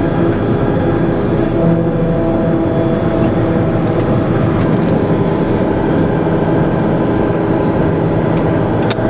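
Cabin noise inside an MRAP armored vehicle under way: the diesel engine and drivetrain give a loud, steady drone with a held hum running through it. A short click sounds near the end.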